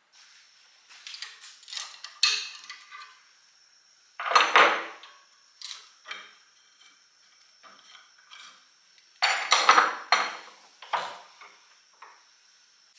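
Metal tools and pieces being handled: scattered clinks and scrapes, with louder clattering about four seconds in and again around nine to ten seconds. A faint steady high whine runs underneath.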